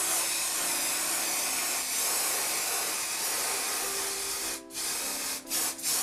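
Aerosol can of hairspray spraying over a pastel painting as a fixative: one long continuous hiss of about four and a half seconds, then a few short bursts near the end.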